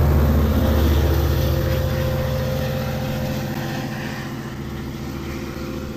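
A departing passenger train with an EMD DM30AC diesel locomotive trailing: a steady low engine drone with wheel and rail noise, fading gradually as the train pulls away.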